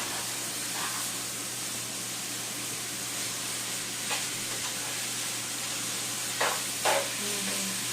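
Instant noodles and shrimp stir-frying in oil in a pan, making a steady sizzle. About six and a half seconds in, the stirring utensil scrapes the pan twice, briefly.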